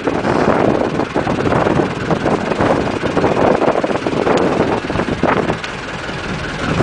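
Small fishing boat's engine running steadily, with scattered knocks and rattles as lobster pots are handled on deck.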